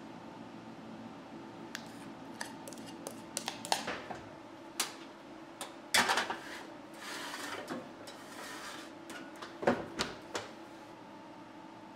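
A few light clicks and clinks of glass, then a metal baking tray of glass ramekins set down on a wire oven rack with a loud clatter and slid in, scraping, and the oven door shut with a heavy knock about ten seconds in.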